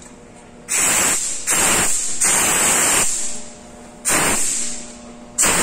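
Autoclave steam safety valve being lifted by hand in a test, venting steam in five sharp hissing blasts; the third blast is the longest, at about a second. The blasts show that the valve opens and releases steam from the pressurised jacket.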